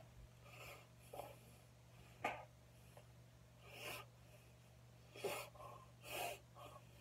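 Faint puffs of breath and the brushing of hands and clothing as a man signs with both hands. There are several short noisy bursts, the sharpest about two seconds in, over a steady low hum.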